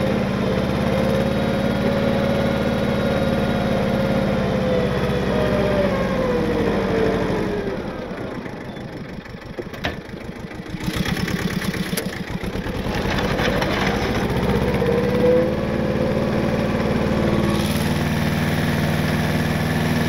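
Tractor engine running steadily while it pushes a grader blade through snow, with a faint whine rising and falling over it. The engine note drops for a couple of seconds just before the middle, then picks back up.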